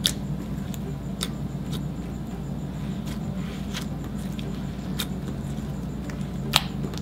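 Clear slime mixed with glitter being pressed and kneaded by hand, giving scattered sharp clicks and pops, the loudest near the end, over a steady low background hum.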